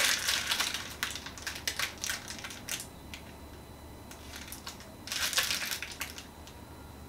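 Clear plastic packaging crinkling and crackling as it is handled and turned over in the hands, in two spells: about three seconds at the start, then a shorter burst about five seconds in.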